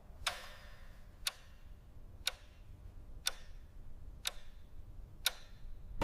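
A clock ticking: six sharp, evenly spaced ticks, one each second.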